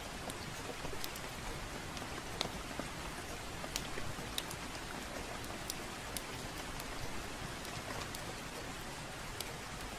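Steady rain hiss with irregular sharp pops and crackles, about one a second, from a wood fire burning in a fireplace.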